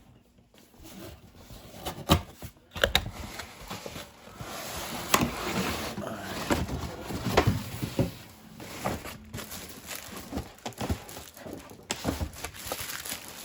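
Cardboard box and packing being handled: a series of sharp knocks and bumps, with a few seconds of rustling packing material in the middle.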